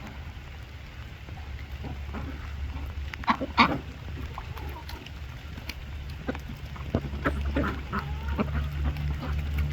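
Ducks calling with short quacks, the loudest a pair about three and a half seconds in and a scatter more in the second half, over a steady low rumble.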